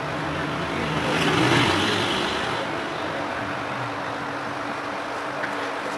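Hot air rework station blowing: a steady hiss with a faint motor hum, swelling about a second in as the air is brought onto the phone's circuit board.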